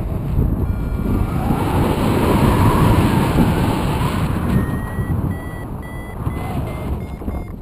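Wind buffeting the microphone of a camera flying under a paraglider. From a little past halfway, a paragliding variometer beeps in short, evenly spaced tones, about two to three a second, creeping slightly higher in pitch: the vario's signal that the glider is climbing in lift.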